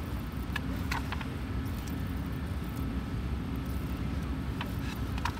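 Steady low outdoor rumble, with a few light clicks and rustles as a picture book's pages are turned and handled.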